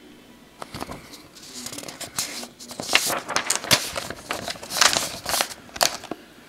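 Sheets of printer paper rustling and crinkling as a page is turned and handled: an irregular run of crisp crackles that starts about half a second in and dies away near the end.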